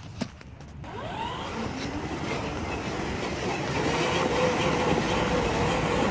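Battery-powered ride-on toy jeep running over grass: a steady electric-motor whine with the plastic wheels rumbling underneath. It gets going about a second in and grows louder.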